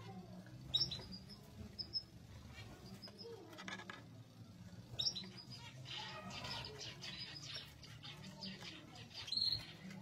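Zebra finches giving a handful of short, sharp calls, with soft rustling of nest material in between.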